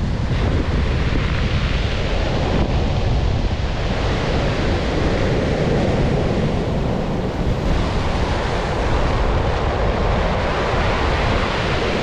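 Rough sea surf breaking steadily on a pebble beach, the waves crashing and their foam washing up over the stones, with wind buffeting the microphone.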